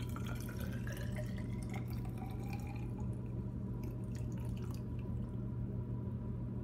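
Water poured from a rubber mixing bowl into a plastic graduated cylinder, the pitch of the filling rising over the first three seconds, then thinning to small trickles and drips.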